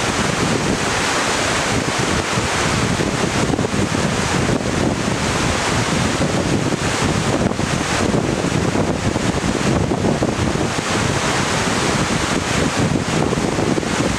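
Glacial meltwater river rushing over boulders: a loud, steady whitewater rush that does not let up.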